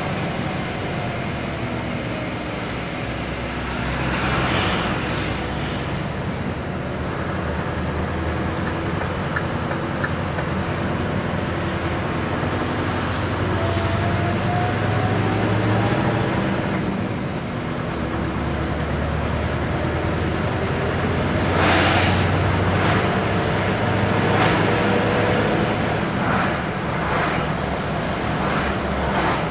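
Engine and road noise of a heavy vehicle driving along, heard from inside its cab, with a steady low drone. The engine note rises twice as it pulls, and short rushes of passing traffic come in the second half.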